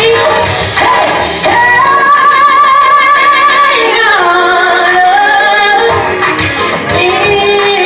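A woman singing a gospel solo, holding a long note with vibrato for a couple of seconds and then sliding down in pitch into the next phrase.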